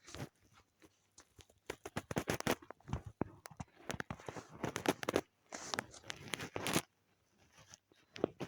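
Scratchy rubbing strokes close to the microphone, in several bursts of about a second each with scattered clicks, as of hand-drawing.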